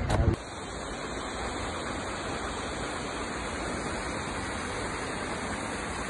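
Skógafoss waterfall rushing: a steady, even hiss of falling water. A loud low rumble cuts off abruptly just after the start.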